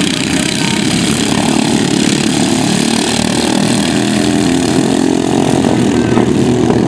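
Engines of several ride-on racing lawnmowers running hard together, a loud, continuous small-engine din whose pitch shifts as the mowers race around the course.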